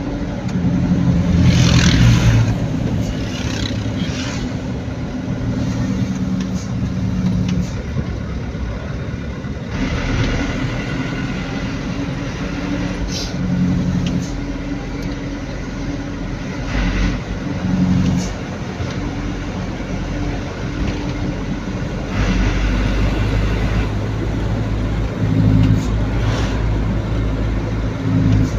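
Engine and road noise of a van heard from inside its cabin while driving. The engine's low hum shifts in pitch as the vehicle speeds up and slows, with a few louder swells of road noise.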